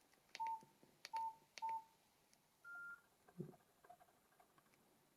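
Nokia 7230 keypad pressed three times, each click followed by a short beep, then a single higher, slightly longer beep about three seconds in and a soft thump just after.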